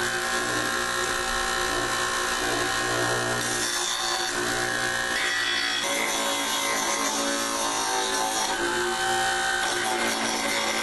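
Bench grinder running with a steady motor whine while a wooden block is ground against its wheel to smooth the edges; the grinding noise shifts a few times as the wood is pressed on and moved.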